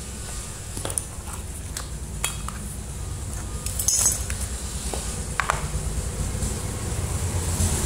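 Scattered clicks and clinks of a screwdriver and the plastic base of an electric kettle being handled as it is screwed back together, with a sharper knock about four seconds in and a clatter after about five seconds as the base is set down on the wooden bench. A low rumble of road traffic runs underneath.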